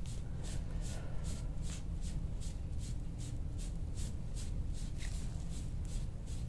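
Short, quick scrapes of a soft-tissue scraping tool stroked over the skin of the back, about three strokes a second in an even rhythm, working a muscle knot hard enough to bruise the skin. A steady low hum runs underneath.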